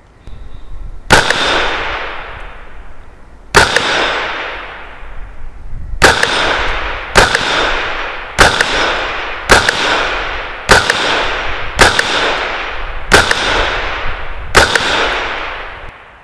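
CZ 512 semi-automatic rifle in .22 WMR firing ten shots: two about two and a half seconds apart, then a quicker string about a second apart. Each sharp crack is followed by a long echo that fades away among the trees.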